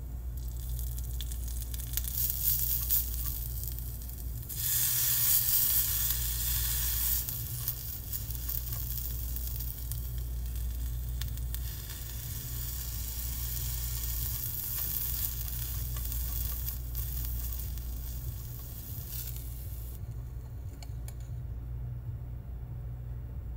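Bracken fern stems sizzling in hot olive oil in a tiny frying pan while they are stirred with a small wooden spatula. The sizzle grows louder for a couple of seconds about five seconds in and cuts off abruptly near the end.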